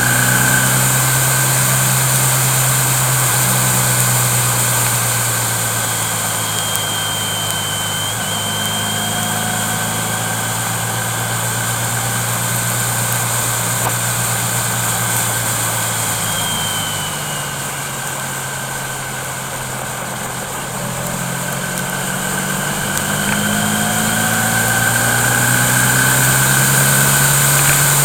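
A vehicle engine running with steady road noise. The engine hum drops away about two-thirds of the way through and builds again near the end.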